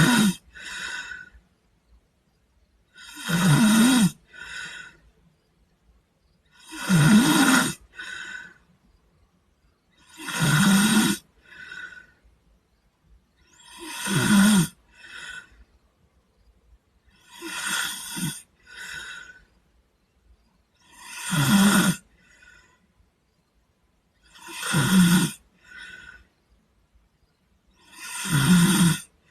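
Sleeping boy snoring in a steady rhythm: nine loud snores, about one every three and a half seconds. Each snore is followed by a shorter, fainter second sound.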